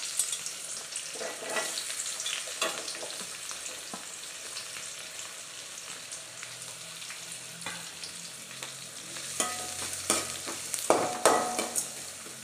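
Chopped onion sizzling in hot coconut oil in a metal kadai, with the scrape and clink of a perforated steel spatula stirring it at intervals, most busily in the last few seconds. The onion is being sautéed in a tempering of mustard seeds, urad dal and curry leaves.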